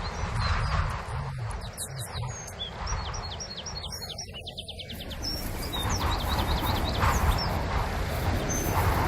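Wind blowing in gusts, with a steady low rumble, while small birds chirp in quick runs of short high notes twice.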